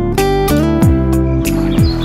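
Background music: strummed guitar over a steady beat, with a deep thud about once a second.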